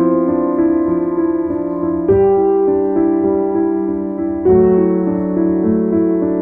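Instrumental piano music: sustained chords, with a new chord struck about two seconds in and another about four and a half seconds in.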